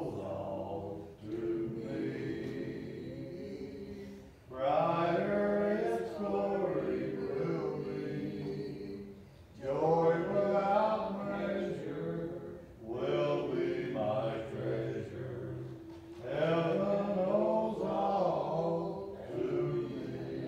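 Congregation singing a hymn a cappella, many voices together without instruments, in phrases a few seconds long that swell and fall.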